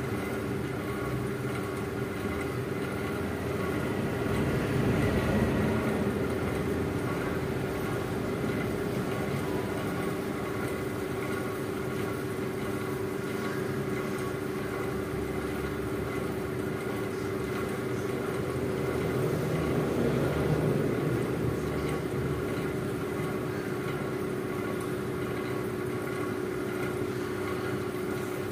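A steady mechanical hum holding several fixed tones, swelling louder twice: about five seconds in and again about twenty seconds in.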